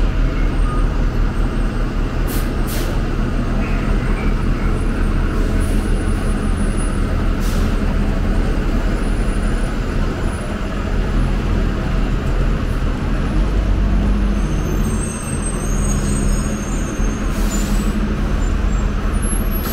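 Orion VII diesel transit bus running, heard from inside the cabin, its engine a steady low drone. A few short hisses of air, typical of the bus's air brakes, come over it now and then.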